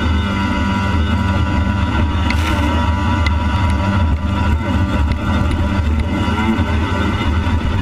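Yamaha WaveBlaster jet ski's two-stroke engine running steadily under way, heard from the handlebars.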